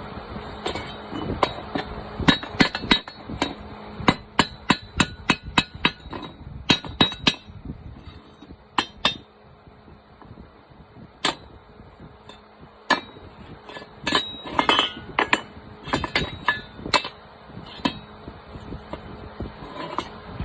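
A hammer striking metal: a run of quick, ringing taps, then scattered single blows, over a steady low hum.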